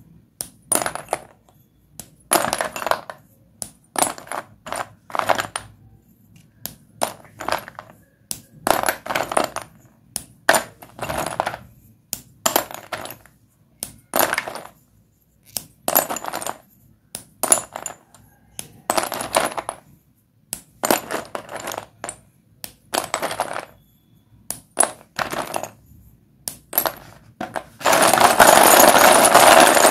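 Sticks of white dustless chalk crunching and breaking in a run of short, crisp cracks, about one a second, with a longer, louder crumbling crunch near the end.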